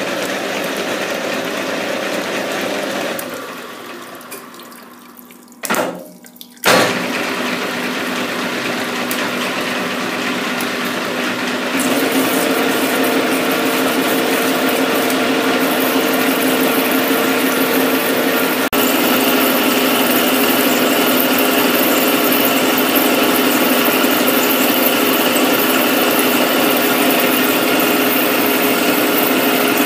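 Metal lathe turning a metal bar with an ISCAR DNMG insert cutting under flood coolant: the spindle running steadily with coolant splashing over the work. The sound dips about three seconds in, comes back after two short loud bursts around six seconds, and grows louder with a steady hum from about twelve seconds in.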